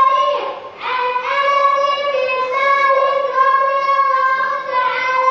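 A group of young children singing together in unison, holding long notes, with a short pause for breath about half a second in.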